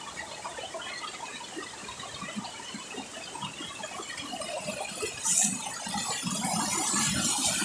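Creek water running and splashing over and between rocks, getting louder near the end, with a short hiss about five seconds in.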